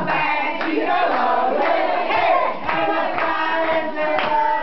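A group of people clapping their hands, with several voices raised together over the claps.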